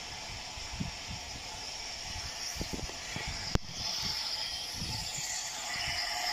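Distant steam locomotive, the Bulleid Battle of Britain class Pacific 34081, hissing steadily with a few low thuds, getting a little louder near the end. A single sharp click sounds about three and a half seconds in.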